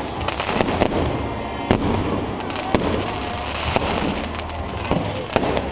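Aerial fireworks going off overhead: a string of sharp bangs, some in quick clusters, over a continuous hiss and rumble of the display.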